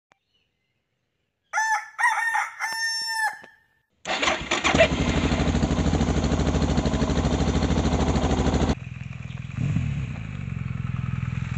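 A rooster crows once, a full cock-a-doodle-doo. About four seconds in, a motorcycle engine starts and settles into a steady idle. Near nine seconds it gives way to quieter motorcycle idling with one brief rise and fall in engine pitch.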